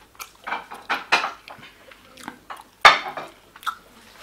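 Plates and cutlery clinking and clattering during a meal, a string of short sharp knocks with one loud clatter nearly three seconds in.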